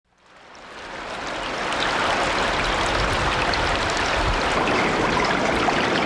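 Running stream water, a steady rush that fades in over the first two seconds.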